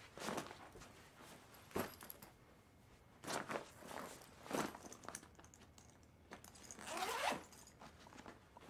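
Black nylon duffel bag being packed by hand: several short rustles of fabric and clothing as things are pushed in, then a zipper pulled near the end.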